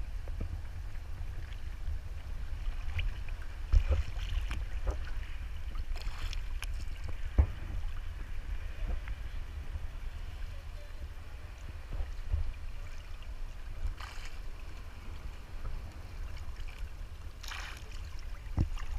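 Small waves lapping and splashing against an inflatable float on the sea, with a few brief splashy hisses, over a steady low rumble of wind on the microphone.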